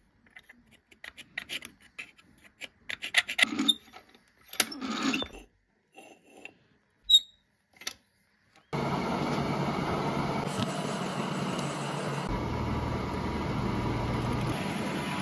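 Light scattered clicks and scrapes of hand work on a steel plate. About nine seconds in, a drilling machine fitted with an annular cutter starts abruptly and runs steadily, its sound shifting slightly about three seconds later as it works the steel plate.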